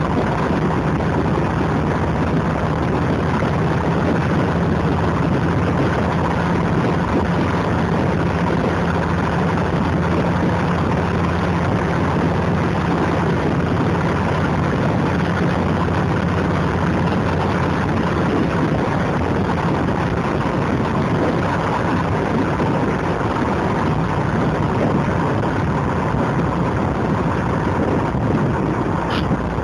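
A TVR Wedge's Rover-derived V8 engine heard from inside the car on the move, running steadily at cruising speed under a constant haze of road noise. A brief click comes near the end.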